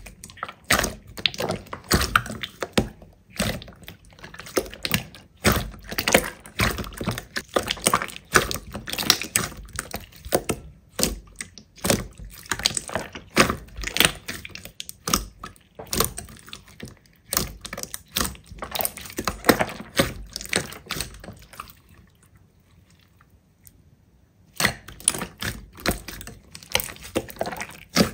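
Slime being squeezed and pressed by hand: a dense, irregular run of wet clicks and small pops. The sound drops away for about three seconds near the end, then picks up again.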